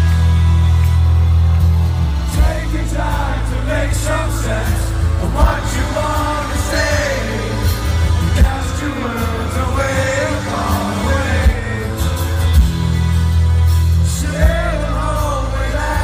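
Live rock band playing, heard from the audience with a heavy, booming bass; a sung vocal melody comes in about two seconds in.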